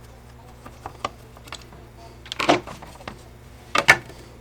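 Light scattered clicks, then two louder short clattering knocks about two and a half and four seconds in: the hard plastic housing of a cordless leaf blower and small tools or screws being handled and set down during disassembly.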